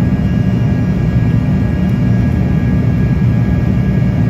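An airliner's engines droning steadily inside the passenger cabin during the climb after takeoff, heard loudly from a seat just ahead of the engines. It is a deep, even drone with several steady tones running through it.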